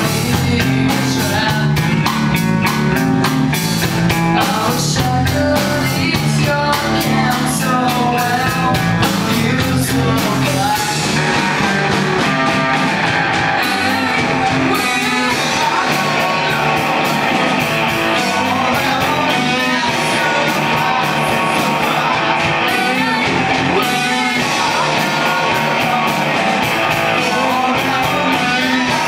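Rock song played by a band, with drum kit, guitar and singing; the arrangement changes about eleven seconds in.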